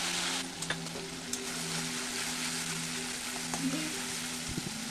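Onion paste frying in hot oil with cumin seeds in a kadai, sizzling hard for about half a second and then settling to a steadier sizzle. A perforated metal spatula stirs it, with a few light scrapes and clicks against the pan.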